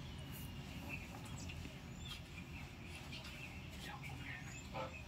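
Faint low hum with light scattered ticks and rustles of cloth being handled at a sewing machine.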